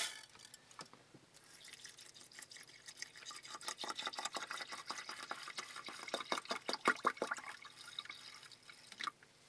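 Water poured from a plastic bottle into a small metal rice-cooker pot of glutinous rice, splashing and trickling onto the grains: adding the cooking water. It starts about a second in and dies away near the end.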